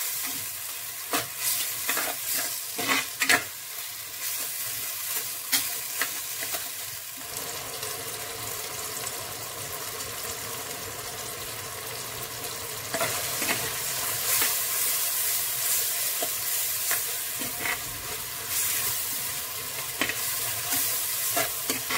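Onions, tomatoes and ginger-garlic paste sizzling in hot oil in an earthen clay pot, being fried until the raw ginger-garlic smell cooks off. A spatula scrapes and knocks against the pot in the first few seconds and again in the second half, with a steady sizzle in between.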